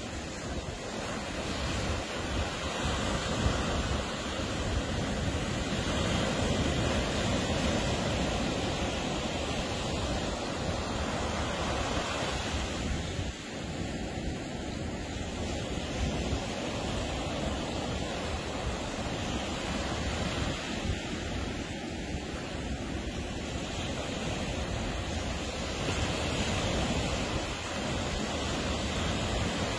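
Ocean surf breaking and washing on a beach: a continuous rush that swells louder as waves come in, most strongly a few seconds in and again near the end.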